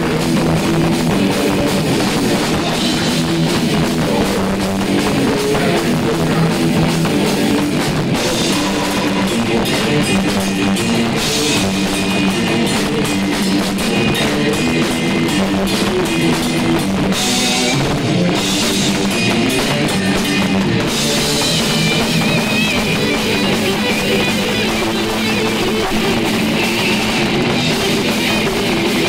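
Live technical death metal band playing: distorted electric guitars over a drum kit, loud and dense.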